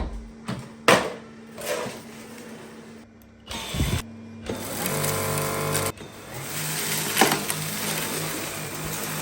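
A few sharp clicks and knocks, then a Dyson V8 cordless stick vacuum's motor running with a pulsing hum; it starts about four and a half seconds in, cuts out briefly around six seconds and starts again.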